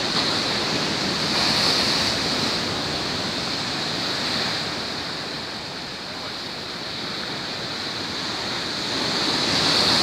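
Rough sea surf breaking on a rocky shore and against a low stone wall: a continuous rush of breaking water that swells about two seconds in, eases off mid-way and builds again near the end as a wave crashes over the wall in spray.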